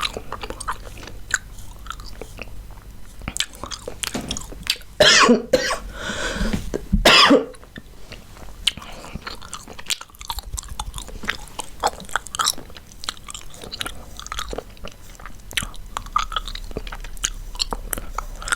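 Chewing gum close to the microphone: a steady run of small wet smacks and clicks, with two louder bursts about five and seven seconds in.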